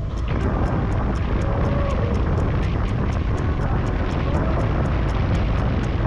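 Motorcycle riding at speed, heard from a handlebar-mounted camera: wind rushing over the microphone with engine and road noise underneath, coming in suddenly at the start.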